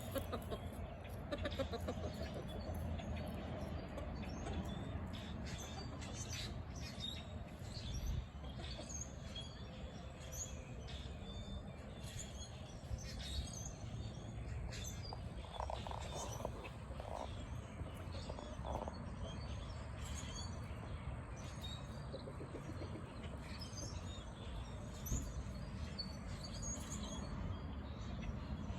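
Small birds chirping and tweeting on and off throughout, over a steady low outdoor background rumble.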